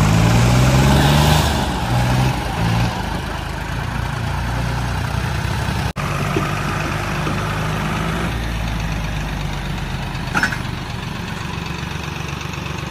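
Diesel tractor engines running under load in a tug-of-war pull. The engine is loudest in the first couple of seconds, its pitch wavering, then settles into a steadier drone. The sound cuts out for an instant about six seconds in.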